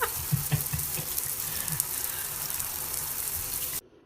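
Steady hissing noise with a few soft low thumps in the first second, cutting off abruptly near the end.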